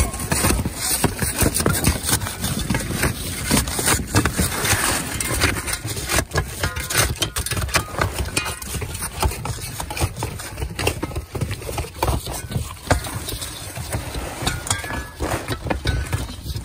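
Roofing shovels prying and scraping old asphalt shingles off a plywood roof deck: a continuous run of irregular scrapes, cracks and knocks as the shingles and nails are torn loose.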